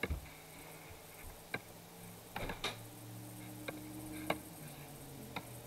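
Faint, irregular clicks, about half a dozen spread over several seconds, from clicking at a computer while choosing colours in a drawing program, over a low steady hum.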